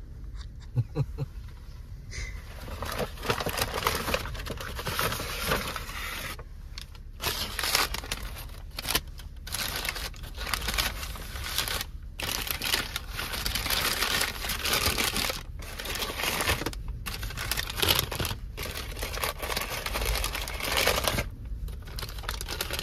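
Rustling, crinkling noise that comes and goes, broken by several short pauses, over a low steady hum.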